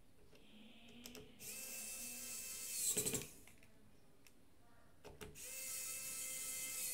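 Wowstick electric precision screwdriver driving small phone screws: a steady motor whine about one and a half seconds in that lasts nearly two seconds and ends in a short, louder rattle, then a second steady run starting about five and a half seconds in.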